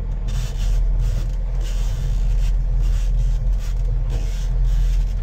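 Fishing boat's engine running steadily with a deep, constant rumble, under a rushing hiss that rises and falls.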